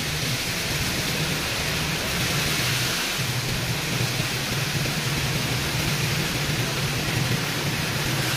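Car driving slowly through street floodwater, heard from inside the cabin: a steady wash of water around the tyres over a low, even engine hum.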